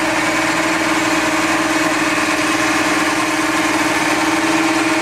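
Cäsar orchard spraying robot running steadily as it drives along the tree row spraying: an even engine and spray-blower noise with a constant hum.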